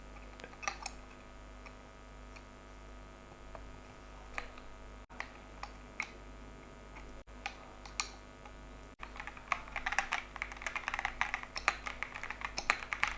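Mechanical keyboard with Pink Lotus linear switches being typed on: a few scattered key presses, then fast, continuous typing from about nine seconds in.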